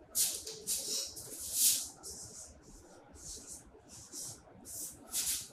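Marker pen writing on a whiteboard: a string of short scratchy strokes with small gaps between them.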